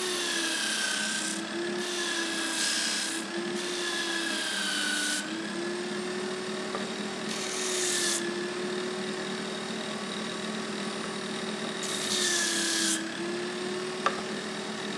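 A motor-driven sanding disc running with a steady hum, broken by several bursts of rasping as a Tasmanian Oak block is pressed against it to round off its corners; the motor's pitch dips each time the wood loads it. A single sharp tick near the end.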